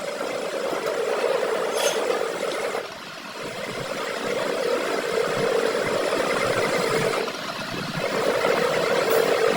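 A machine running steadily, its sound dropping briefly about three seconds in and again around the eighth second.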